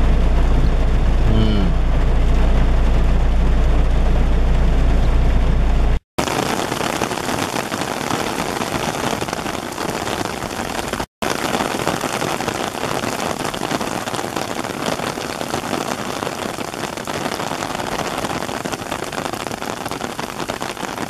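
Heavy rain pouring down on grass and trees, a steady hiss. For the first six seconds a deep steady rumble lies under the rain. Then the sound cuts out twice, briefly.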